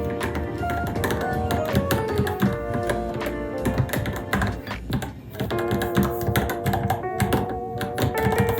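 Typing on a Varmilo Minilo mechanical keyboard: a fast, continuous run of key clicks with a brief pause about five seconds in, under louder background music with held melodic notes.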